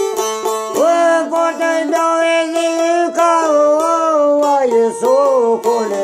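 A man singing a folk melody in a wavering, ornamented voice over a long-necked lute plucked in quick repeated notes above a steady drone note. The voice comes in about a second in and drops out near the end, leaving the lute alone.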